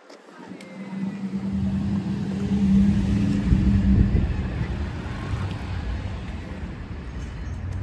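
A motor vehicle driving past with a low engine rumble, growing louder to a peak about three to four seconds in and then slowly fading as it moves away.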